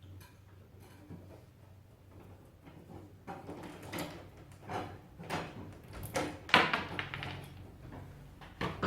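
Short clicks, scrapes and knocks of a screwdriver working a screw out of an old metal rim lock on a wooden door. They start a few seconds in and come irregularly, with the sharpest knock about two-thirds of the way through.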